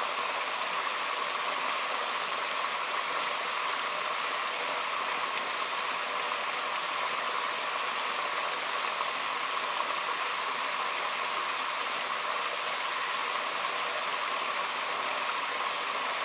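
Rushing stream: a steady, even hiss of running water.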